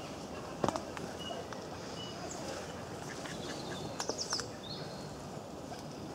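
Mallards dabbling in wet mud, with a few sharp clicks just under a second in and again about four seconds in. Short, high chirps of small birds sound over steady background noise.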